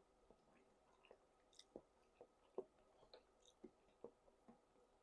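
Faint chewing: soft, irregular mouth clicks and smacks, a few a second.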